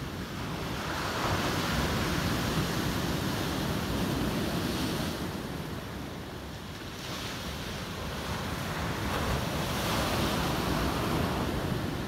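Ocean surf washing ashore, with wind on the microphone; the wash swells twice.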